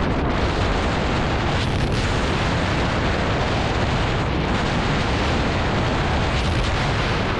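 Steady wind rush buffeting the microphone of a handlebar-mounted camera on a scooter riding at speed.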